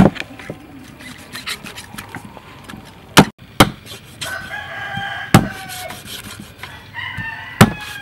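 A heavy cleaver chopping a stingray on a thick wooden chopping block: five sharp chops at uneven intervals. A rooster crows twice in the background, once midway and once near the end.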